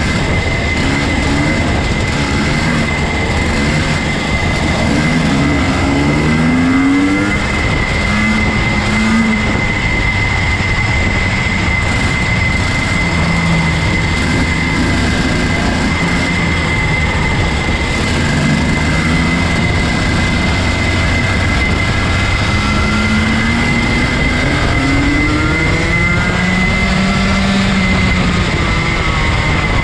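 Junior Rotax 125 cc two-stroke kart engines at racing speed, their pitch repeatedly rising and falling as they rev out and back off. Heard from onboard a kart, under a constant rush of noise with a steady high whine.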